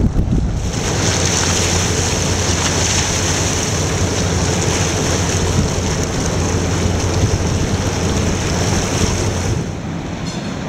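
Wind rushing over the microphone and water noise, with a steady low boat-engine hum underneath. The rush swells about a second in and falls away near the end.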